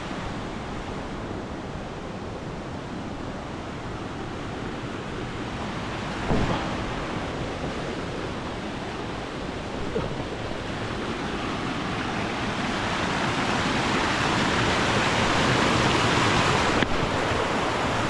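Steady rush of a mountain stream and waterfall, swelling louder in the second half, with a single brief bump about six seconds in.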